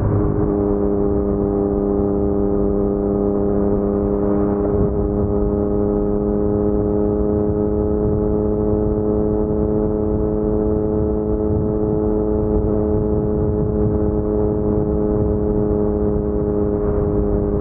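Yamaha MT-09's crossplane three-cylinder engine through an Akrapovic carbon full-system exhaust, running at a steady, unchanging pitch with a low rumble underneath.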